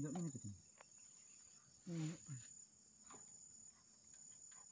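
Insects in the surrounding vegetation buzzing in a steady, thin, high-pitched tone. Two short vocal sounds come at the start and about two seconds in, and a few faint clicks are scattered through.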